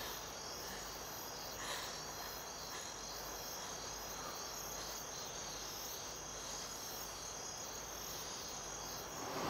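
Crickets chirping faintly and steadily in a night-time outdoor ambience.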